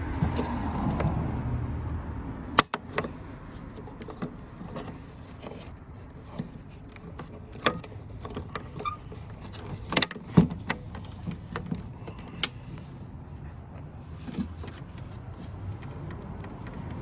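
Irregular sharp clicks and knocks of the tail light's bulb socket and housing being handled, over a steady background hiss.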